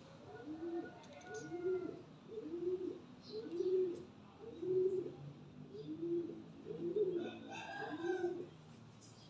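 Homing pigeon cooing, a series of low, arched coos about one a second that stop shortly before the end.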